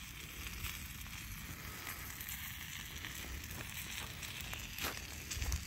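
Fire burning inside a perforated stainless steel burn cage, hissing steadily with scattered crackles and pops.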